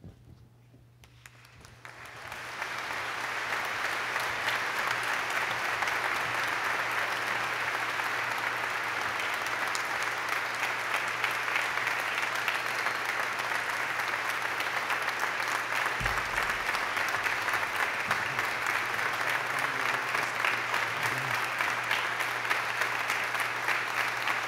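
Large congregation applauding, the clapping swelling in about two seconds in and then going on steadily.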